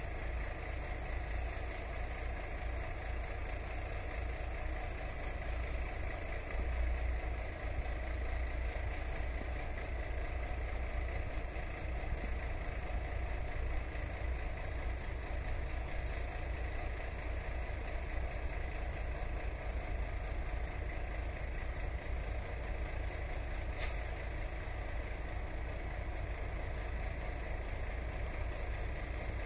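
Steady sound of distant road traffic with a low rumble, unchanging, and a faint tick about 24 seconds in.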